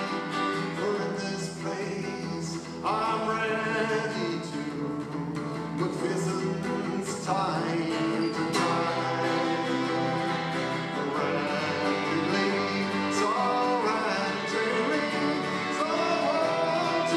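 Live folk music: a man singing to a strummed steel-string acoustic guitar, with two violins playing along.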